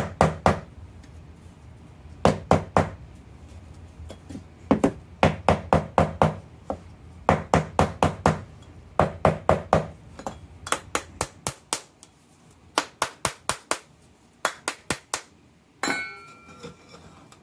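Stainless steel scoop smacking a plastic bath bomb mold in quick bursts of sharp taps, several a second, to loosen the packed bath bomb mix so it releases from the mold. Near the end a single different, ringing scrape as the mold part comes free.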